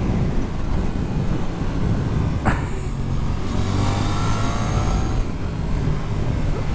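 Suzuki GSX-8S's 776cc parallel-twin engine on the move, heard under heavy wind rush on the microphone as the bike slows into a bend. A short sharp sound comes about two and a half seconds in, and the engine note stands out more clearly for a couple of seconds after it.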